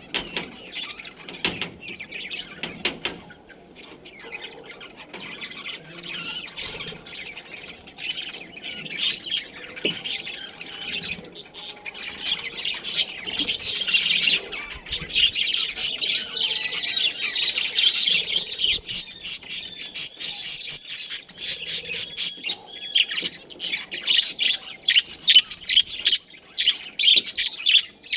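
Budgerigars chirping and chattering in a rapid stream of short calls, which grow louder and busier about halfway through.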